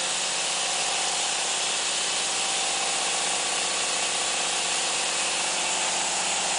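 Diesel-driven MJ horizontal band sawmill running: an even, steady hiss from the band saw, with the engine's constant hum beneath it.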